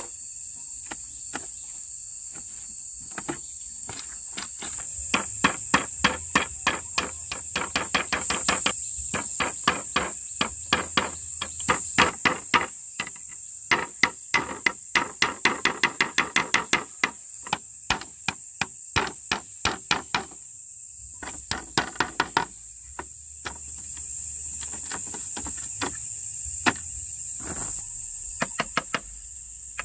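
Rapid series of sharp knocks of a tool striking wood, about two to four strokes a second in runs with short pauses. A steady high-pitched insect drone continues underneath.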